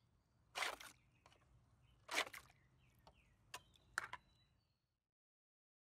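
Faint splashes of water in a tray as a container lid pushes waves against a model sand shoreline, three of them about a second and a half apart, over a low hum.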